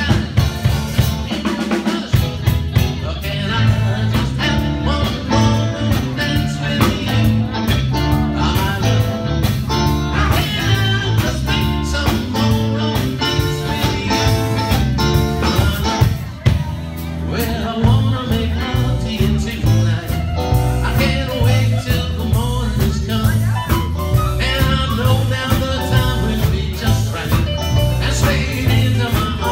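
Live band playing a blues-rock number on electric guitars, bass guitar, drum kit and keyboards, with a steady beat and a walking bass line. The bass drops out briefly about sixteen seconds in.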